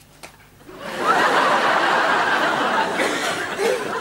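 Studio audience laughing, coming in about a second in and holding steady.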